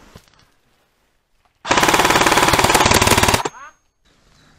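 Airsoft electric rifle, the player's CYMA M16A1, firing one rapid full-auto burst of about a second and a half, the BB shots running together in a fast even rattle.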